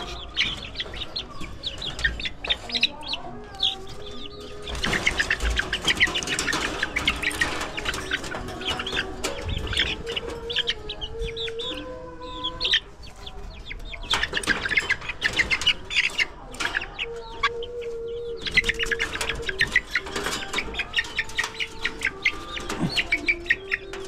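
Young chickens clucking and chirping as they are caught and handled, with several stretches of rapid, dense chirping.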